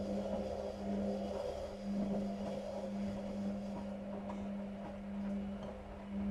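Whirlpool FL 5065 washing machine in its wash cycle: the drum motor hums steadily at one low pitch while water and laundry slosh, with small knocks, the sound swelling and easing about once a second.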